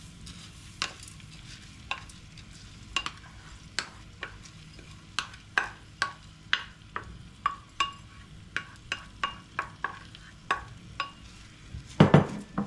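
Wooden spoon tapping and scraping against a ceramic bowl as raw rice is spooned into a pan of frying dolma filling, with a faint sizzle from the pan underneath. Near the end comes a louder burst of stirring strokes in the pan.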